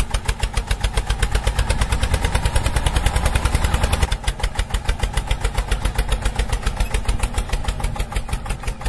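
Tractor-style engine chugging steadily at a fast, even beat of about ten pulses a second, with a slight change in tone about four seconds in, as the toy mini tractor drives along.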